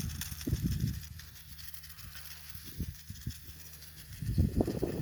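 Sprinkler irrigation running, a steady faint hiss of water spray, with irregular low rumbling thumps at the start and again near the end.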